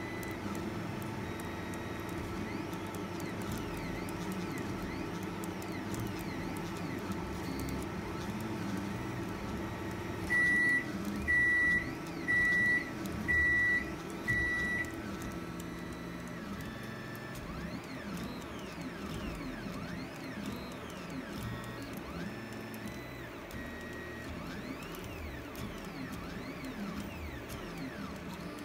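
FDM 3D printer at work: its stepper motors whine in constantly shifting pitches as the print head travels, over a steady hum. About ten seconds in, five short high beeps sound about a second apart.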